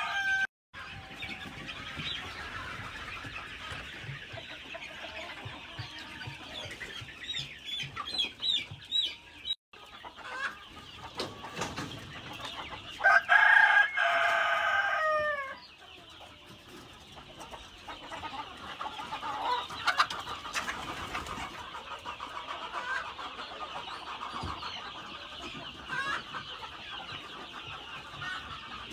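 A flock of Fayoumi chickens clucking and peeping steadily. About 13 seconds in, one loud rooster crow lasts a couple of seconds and falls away at its end.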